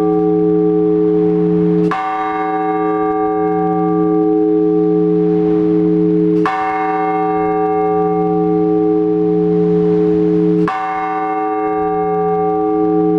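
A large Orthodox church bell struck slowly, one stroke about every four to four and a half seconds, each stroke ringing on until the next. This measured single-bell ringing is the blagovest calling worshippers to the all-night vigil.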